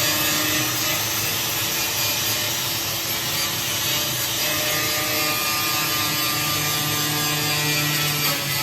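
A power tool running steadily without a break.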